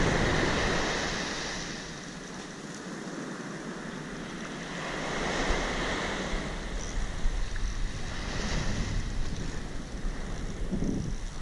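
Surf breaking and washing up a beach, swelling at the start and again about five seconds in. Wind rumbles on the microphone in gusts through the second half.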